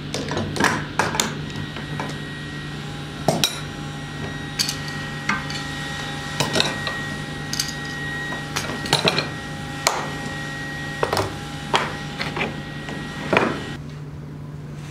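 Steel bar clamps clanking and knocking as they are handled, slid and tightened onto wooden strips: a dozen or so irregular sharp metal knocks, some ringing briefly, over a steady low hum.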